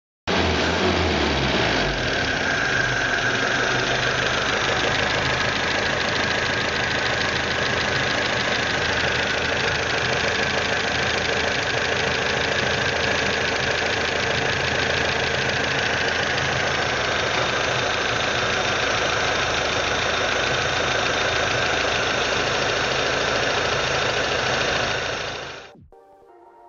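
1968 GAZ-21 Volga's carburetted four-cylinder petrol engine running at idle, uneven for the first couple of seconds and then steady. It cuts off about a second before the end, leaving faint music.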